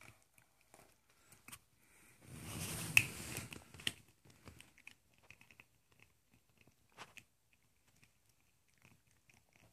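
Puppy chewing on a plastic ballpoint pen: faint, scattered clicks and gnawing of teeth on plastic. About two to four seconds in comes a louder rustling stretch with a couple of sharp clicks.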